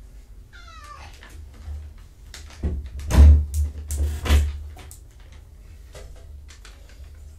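A kitten gives a short meow about half a second in. From about two and a half seconds in there is a burst of loud knocking and rustling close to the microphone, the loudest sound here, that dies away by about four and a half seconds in.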